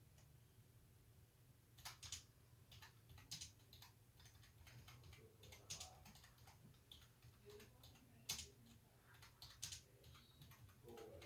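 Faint, irregular clicks, a dozen or so spread unevenly, over a low steady hum.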